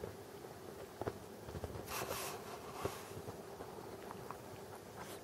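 A cat licking a kitten's fur: soft scattered clicks and rasps, with a brief rustle of fur and blanket about two seconds in, over a faint steady hum.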